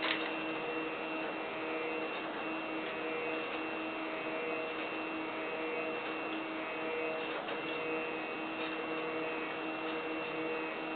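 Stepper motors of an H-Bot 3D printer running a dry test without filament, giving a steady whine of several held tones. Faint clicks and short breaks come every second or two as the moves change.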